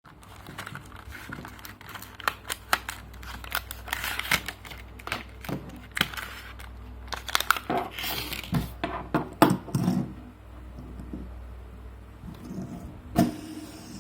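Handling noise from a fidget spinner held in the hand: irregular clicks, taps and rustles, thinning out after about ten seconds, then one sharp click near the end.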